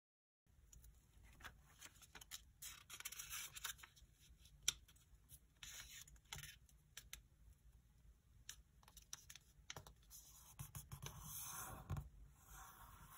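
Faint rustling and crinkling of a sheet of origami paper being slid, folded edge-to-crease and pressed flat by the fingers, with scattered small crackles and ticks.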